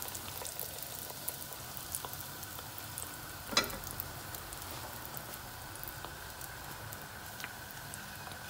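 Albanian fried-dough squares (petulla) deep-frying in a pan full of hot oil: a steady sizzle with scattered small crackles, and one sharper, louder crack about three and a half seconds in.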